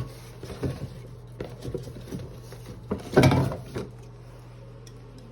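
Small clicks and knocks of objects being handled, with a louder rustling burst about three seconds in, over a steady low hum.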